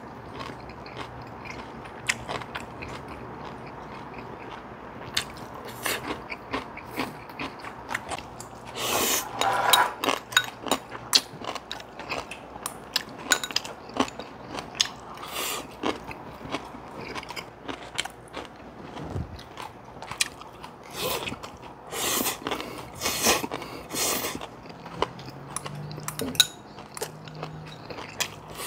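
People eating Korean home-cooked side dishes: chewing and crunching, with many short sharp clicks. The loudest crunching comes in bursts about nine seconds in and again around twenty-two to twenty-four seconds.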